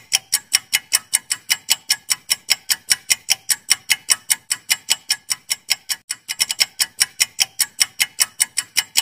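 Clock-style ticking, about five sharp ticks a second, with a brief quicker flurry about six seconds in: a quiz countdown-timer sound effect.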